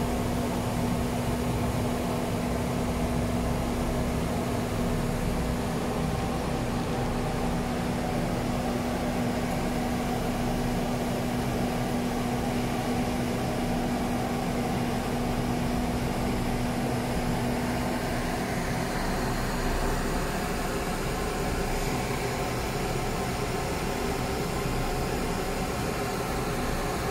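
Steady machine and fan noise from an automated TIG welding cell with cold-wire feed and a rotary table. A steady low hum in it stops about two-thirds of the way through.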